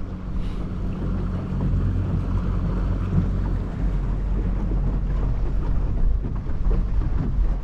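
A boat's outboard motor running steadily with the boat under way, with wind blowing across the microphone.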